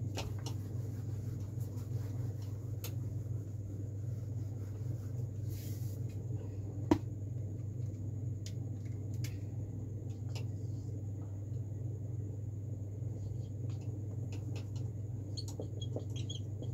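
Steady low room hum, with a duster wiping a whiteboard at the start and a marker tapping and scraping on the whiteboard near the end.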